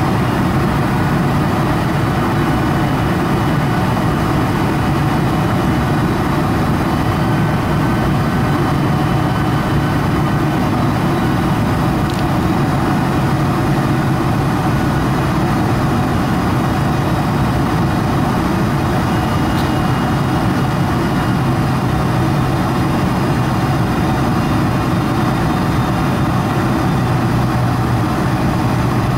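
Steady cabin noise of a Boeing 747-400 descending on approach: its General Electric CF6 turbofans and rushing airflow, heard from a window seat beside the wing, with a low hum underneath.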